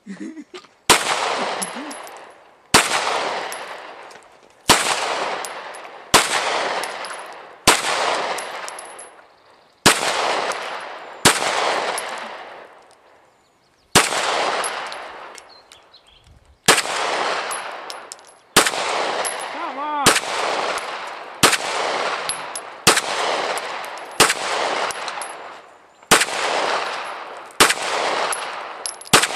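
9mm pistol fired in slow, aimed single shots, about seventeen in all, roughly one every one and a half to two seconds. Each report is followed by a long echo that dies away over a second or more.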